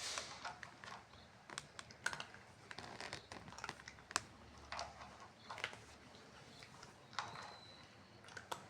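A cat eating, with irregular small crunches and clicks as it chews its food.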